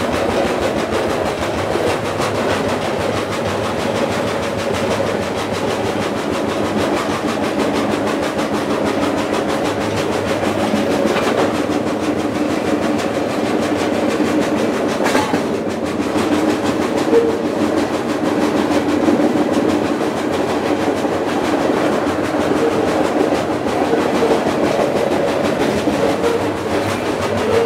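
Freight car rolling at speed, heard from out on the car's end platform: steady running noise of steel wheels on rail with a faint steady hum. There is one louder knock about fifteen seconds in.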